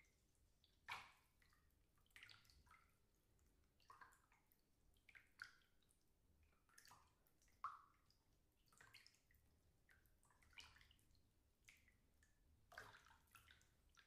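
Quiet water moving in a bathtub: soft, irregular sloshes and drips, roughly one every second.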